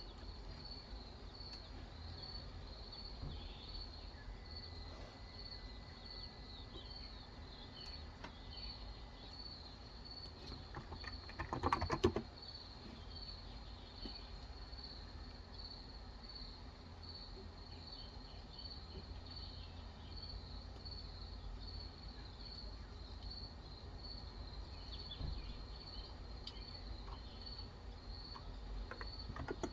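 Steady insect chirping, a cricket repeating a high chirp about twice a second. About 12 seconds in comes a short burst of keystrokes on a capacitive (Topre-style) keyboard, the loudest sound, with a few more keystrokes near the end.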